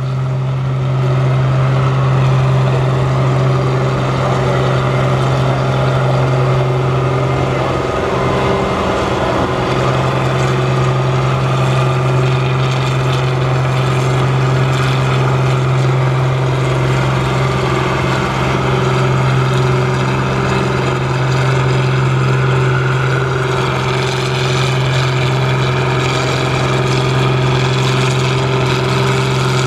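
Farm stock diesel tractor engine running hard at a steady, unchanging pitch under load, pulling a weight-transfer sled.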